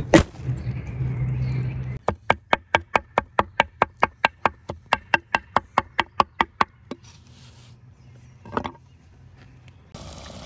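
Knife chopping fresh herbs on a wooden cutting board: a quick, even run of chops, about six a second for some four and a half seconds, after a loud thump at the start; one more single knock comes near the end.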